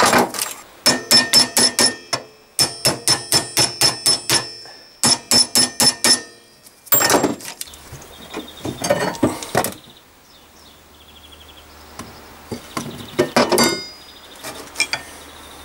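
Hammer striking steel in quick runs of blows, about five a second, each with a bright metallic ring, then a few duller knocks. The blows are driving at the seized inner needle-bearing race on the rear suspension arm of a 1954 Panhard Dyna Junior, which would not come free with heat alone.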